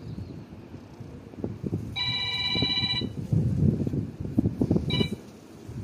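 Electronic phone ringtone: a trilling multi-tone ring held for about a second, then a brief second ring near the end. Uneven low rumbling noise runs underneath.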